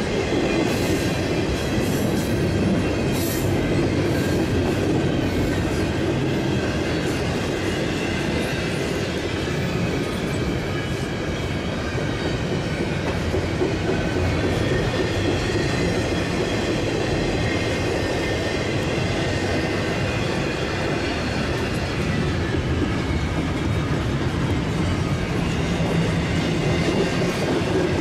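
Freight cars of a Canadian Pacific freight train rolling past: a steady rumble of steel wheels on rail, with clickety-clack over the rail joints, strongest in the first few seconds, and a faint high-pitched wheel squeal.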